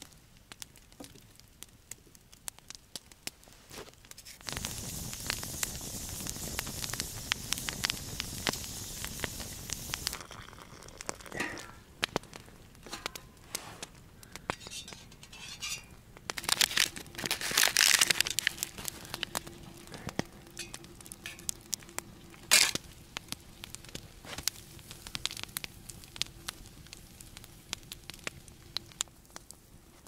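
Campfire crackling while sausage fries over it, with a steady sizzle for about five seconds early in the stretch. Later come handling noises, clattering and plastic crinkling, loudest a little past the middle, and one sharp knock.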